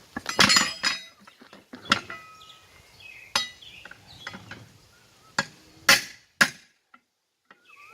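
Steel tools striking and prying at the steel ring of a military split-rim wheel: several irregular sharp metal clanks, some ringing briefly.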